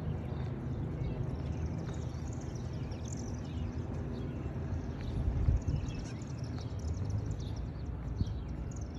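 Evening birds chirping, many short high chirps scattered throughout, over a steady low outdoor rumble that swells briefly about halfway through.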